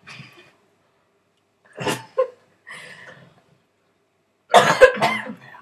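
A person coughing in a few short bursts, the loudest near the end.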